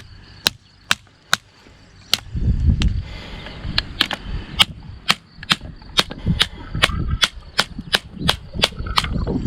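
Sharp knocks of a baton striking the spine of a Victorinox Forester M Grip pocket knife, driving its 1.4110 stainless blade through a bone. A few spaced strikes come first, then about two to three a second in a steady run.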